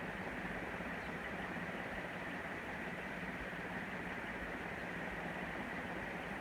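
Northwest Envirofan heavy-duty Gold Line industrial ceiling fan running on high: a steady rush of moving air with a little motor hum.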